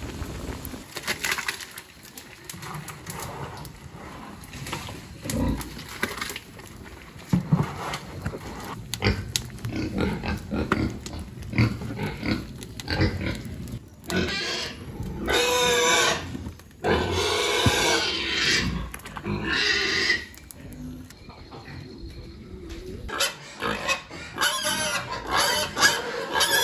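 Domestic pigs squealing: several loud, long, wavering cries over about six seconds in the middle, with more squeals near the end. Before them come scattered knocks and clatter.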